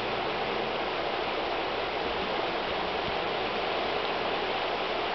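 A fast, shallow river running over a rocky riffle: a steady rush of water with no breaks.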